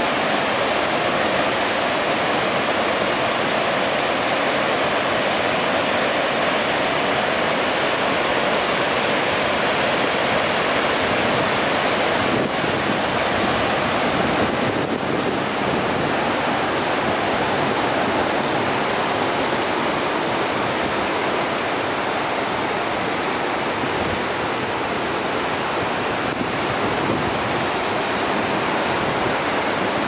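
Steady rushing of whitewater from the Tannforsen waterfall and the rapids below it.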